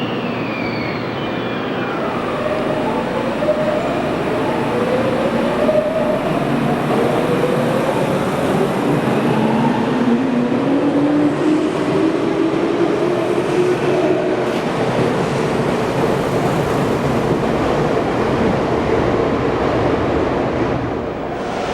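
A Tokyu electric train pulling out of the station and accelerating, its inverter-driven traction motors giving a whine that climbs in pitch in steps over a steady rumble of wheels on rail.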